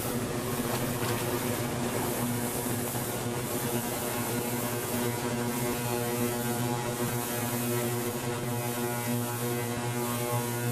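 Morantz M-115 "Mighty One" ultrasonic cleaning tank running with a lawnmower submerged in its bath. It gives a steady hum with a buzzing stack of overtones over a constant hiss.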